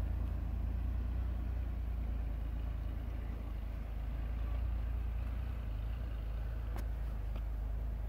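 Ford Ranger pickup's engine running as the truck drives slowly through deep snow: a steady low rumble.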